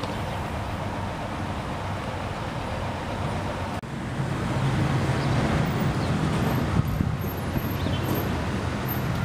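Steady street traffic noise with a low engine hum, briefly cutting out about four seconds in and a little louder afterwards.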